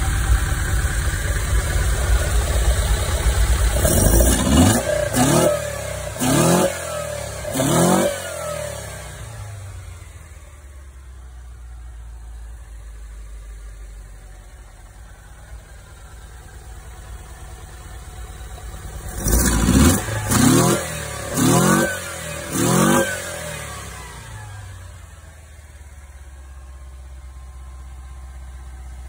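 VW Vanagon's water-cooled 2.1-litre flat-four (wasserboxer) engine on twin Weber 40 IDF carburettors, on its first run after the carb update kit and new ignition were fitted. It runs loudly at first, then is blipped up in revs four times in quick succession, settles to a steady idle, and about twenty seconds in gets another four quick blips before idling again.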